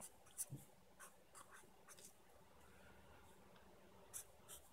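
A Sharpie marker writing letters on graph paper, very faint: a few short strokes in the first second or so, then two more near the end.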